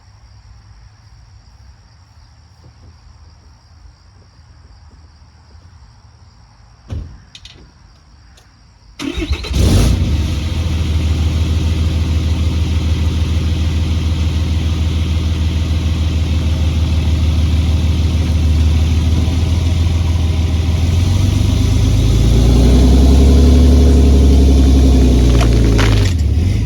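A single thump, then about nine seconds in a Cummins 6.7-litre turbo-diesel pickup with an aftermarket exhaust starts and runs steadily. Near the end it revs harder, its pitch rising and then falling, as it pulls on a strap to uproot a tree stump.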